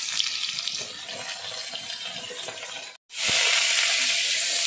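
Slices of potol (pointed gourd) sizzling in hot oil in a wok as they are dropped in by hand. The sound cuts out for an instant about three seconds in, and then the sizzling comes back much louder.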